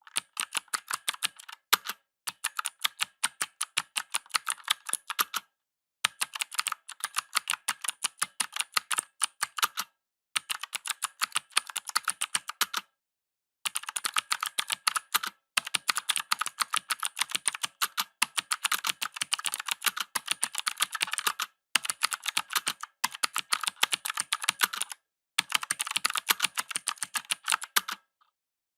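Typing on a mechanical keyboard: quick clicking keystrokes in runs of a few seconds, each run broken off by a short pause.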